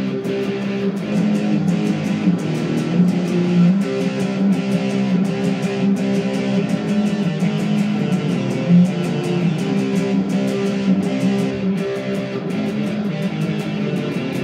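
Instrumental music: guitar playing over a steady beat.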